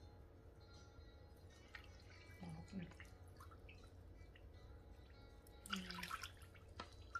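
Faint trickle and splash of water poured from a small bowl into a plastic measuring jug, in a few short pours with the clearest near the end.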